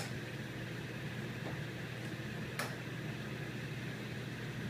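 Steady low hum of room air conditioning, with a few sharp clicks. The loudest click comes about two and a half seconds in, as the aluminium crutches and shoes are set down on the tiled floor during crutch-walking practice.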